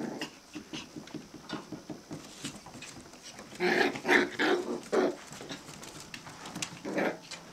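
Five-week-old Australian Terrier puppies at play, giving a run of short, high yips and whines about halfway through and another brief one near the end, over light ticking and scratching.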